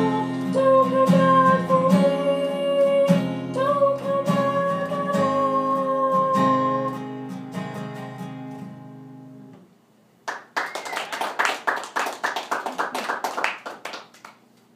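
A woman sings over a strummed acoustic guitar. The song ends about seven seconds in and the last guitar chord rings out and fades. After a brief silence, audience applause follows for about four seconds.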